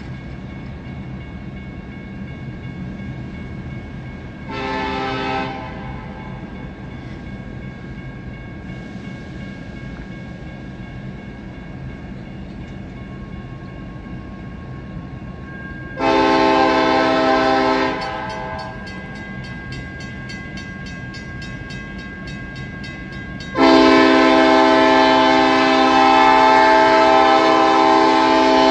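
Lead Union Pacific SD70ACe locomotive's Nathan K5LLA five-chime air horn sounding as the train approaches: a short blast about four seconds in, a two-second blast midway, and a long blast near the end. Each blast is louder than the one before, over the steady low rumble of the oncoming train.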